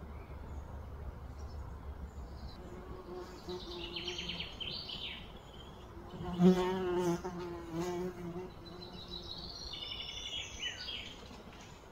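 A flying insect buzzing close by, a wavering hum that swells loudest a little past the middle, then fades. Quick high chirps sound twice in the background.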